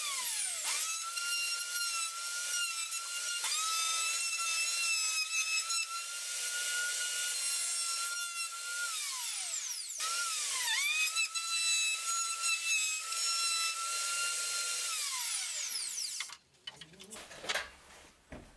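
Black+Decker plunge router running with a steady high whine while cutting a recess into hardwood for a speaker driver's rim. Twice the whine drops away as the motor winds down and then comes back up to speed. Near the end it winds down for good.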